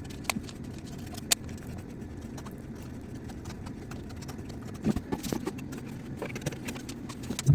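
Scattered light clicks and taps of a tool working two-part epoxy wood filler, over a steady low hum; the taps cluster in the second half, with a sharper knock near the end.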